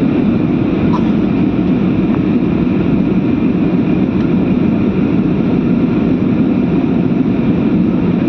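Steady, loud rumble of an airliner in flight heard from inside the cabin: engine and air noise, unchanging throughout.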